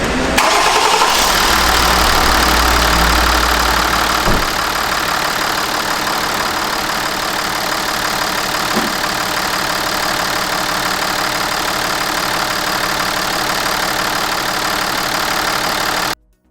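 Hyundai Veracruz engine starting, with a heavy low rumble for the first few seconds, then settling into a steady idle about four seconds in. It cuts off suddenly near the end.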